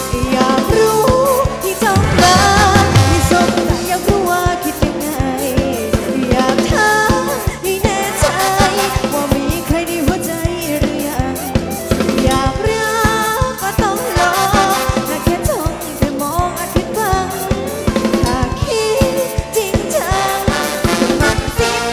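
Thai ramwong dance-band music taken straight from the mixing desk: a drum kit plays a busy beat of snare, kick and rimshots under a melody with a voice singing.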